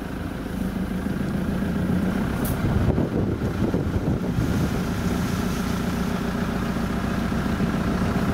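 Safari vehicle's engine running steadily as it drives through the bush, a low hum that grows louder about a second in and then holds.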